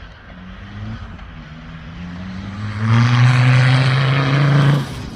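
Off-road racing vehicle's engine running hard, its pitch climbing slowly, then much louder at high revs for about two seconds before stopping abruptly near the end.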